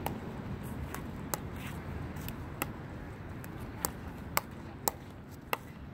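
A pickleball dinking rally: sharp plastic pops of paddles striking the perforated ball and of the ball bouncing on the court, about eight at uneven spacing.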